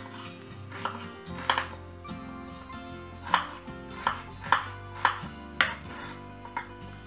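Chef's knife chopping a peeled onion on a bamboo cutting board: about eight sharp knocks of the blade striking the wood at an irregular pace, over background music.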